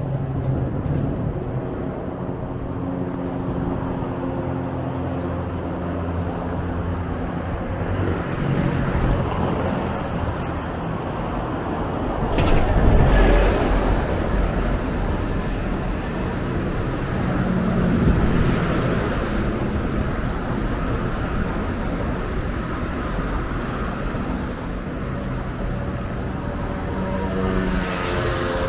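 Road traffic: engines of vehicles driving past on the road, a steady hum and tyre hiss. A louder vehicle goes by about 13 seconds in, and another about 18 seconds in.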